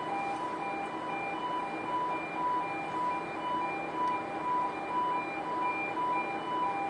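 Car-deck warning alarm on a ro-ro ferry: a high and a low tone alternating in a steady beeping rhythm about twice a second, over the even noise of the deck.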